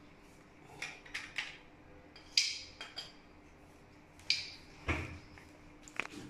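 Screwdriver working a screw in a small wall fitting against tile: irregular sharp metallic clicks and clinks, with a duller knock about five seconds in.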